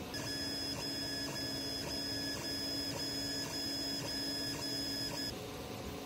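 Creality CR-10 3D printer's stepper motors on the stock A4988 drivers, whining in several steady pitched tones while printing. The tones break briefly about twice a second as the moves change, then cut off suddenly about five seconds in.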